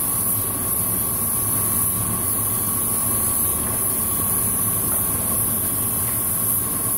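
Cam grinding machine rough-cutting a lobe on a hard-steel billet 5.9 Cummins camshaft under flowing coolant: a steady hum with a constant whine and a strong high hiss.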